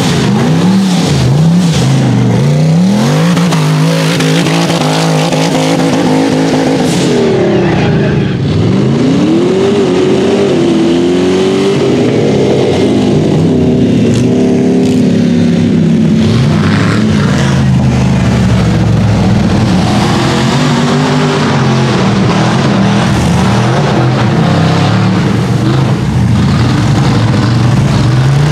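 Rock bouncer buggy engine revving hard, its pitch climbing and falling again and again, then holding a steadier, higher note through the second half.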